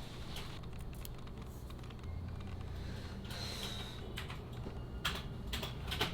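Light clicks and taps of hands handling a device and its packaging over a steady low hum, with a brief faint high tone about three seconds in and sharper clicks near the end.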